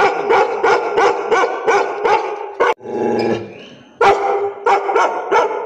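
A large Bhote kukur (Nepali mountain guard dog) barking loudly and rapidly, about three barks a second, with a short break and a lower drawn-out sound near the middle before the barking starts again. It is guard barking at a stranger at its gate.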